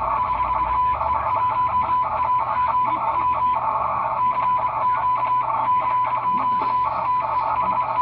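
Morse code (CW) tone of about 1 kHz from a ham radio transceiver, keyed by hand in rapid dots and dashes as the operator sends a "CQ TEST" call with his callsign. It sounds over a hiss of receiver noise at about the same pitch.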